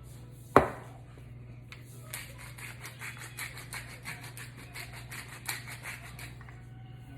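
A sharp knock about half a second in, then a hand-twisted salt and pepper grinder: a quick run of crunchy grinding clicks, about five a second, lasting about four seconds.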